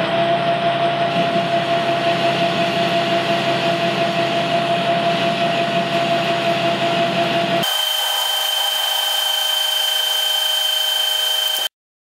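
Metal lathe running while a parting tool cuts through a 4130 steel pin, a steady machining whine with a gently pulsing level. About eight seconds in the sound turns thinner with a higher-pitched whine, and it cuts off suddenly near the end.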